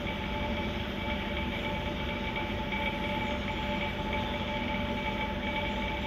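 Steady mechanical hum and hiss with a few held tones, typical of the aquarium air pumps and filtration running in a fish room.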